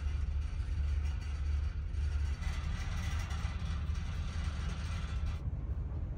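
Steady low drone of the ferry's engines carried through the hull, with a steady hiss over it that stops suddenly near the end.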